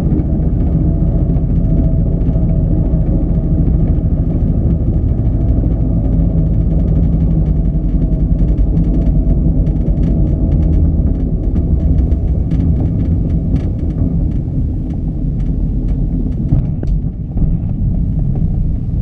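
Two-seat glider rolling out on a paved runway: a steady, loud low rumble from its wheel on the asphalt carried through the fuselage into the cockpit, with scattered light clicks and rattles in the second half.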